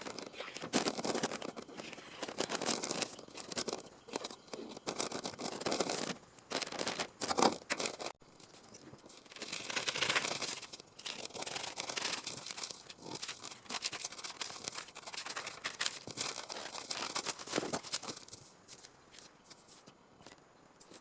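Irregular rustling, crinkling and snipping from hand work with sheet material, uneven in loudness, with an abrupt break about eight seconds in and quieter handling towards the end.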